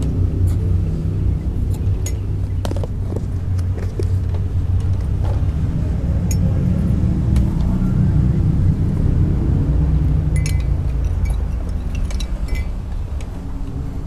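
A steady low rumble, with a few sharp clinks of a glass mug, two of them ringing briefly, about ten and twelve seconds in.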